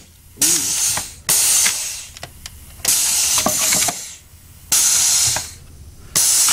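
Pneumatic ram firing over and over, with five bursts of compressed-air hiss about one to two seconds apart. Each burst starts abruptly and fades away.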